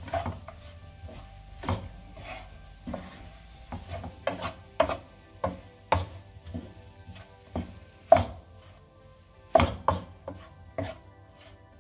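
Wooden spatula stirring soya chunks in a nonstick frying pan: irregular knocks and scrapes of the spatula against the pan, about one or two a second.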